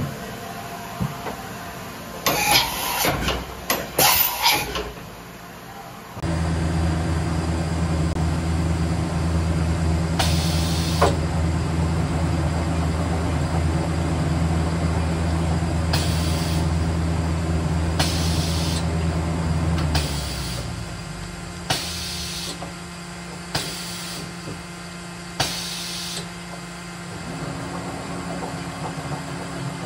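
Mazak VCC-5X 20K machining centre's 30-tool automatic tool changer magazine rotating: a steady low mechanical drone that drops to a quieter hum about two-thirds of the way through, with short hisses of air every few seconds. A few sharp clatters come a couple of seconds in, before the drone starts.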